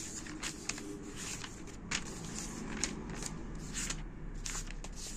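Paper pages of a textbook being flipped and turned by hand: a quick, irregular string of papery rustles and flicks over a steady low hum.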